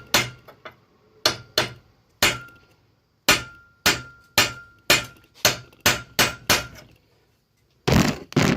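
Hammer blows on a metal hole punch: about fourteen sharp strikes in uneven groups, several leaving a short metallic ring. A louder clattering burst comes near the end.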